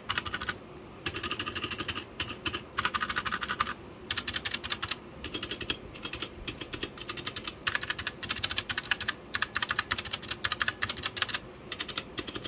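Fast typing on an Aula F2058 mechanical keyboard with brown tactile switches. The keystrokes come in dense runs of rapid clicks broken by short pauses.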